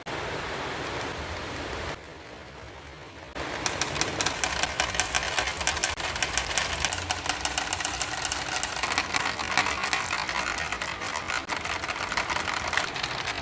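Marbles rolling down a marble run with a steady rushing rumble, then, from about three seconds in, a dense rapid clatter of many marbles clicking against each other and the track.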